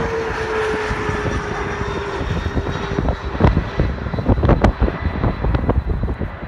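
Bombardier CRJ regional jet on final approach passing low overhead, its rear-mounted turbofans giving a steady jet roar with one slowly falling tone. About three seconds in this gives way to gusty wind buffeting the microphone, with fainter jet noise underneath.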